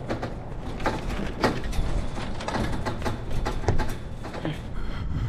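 Chain-link fence rattling and clinking in irregular knocks as it is climbed, over a steady low rumble.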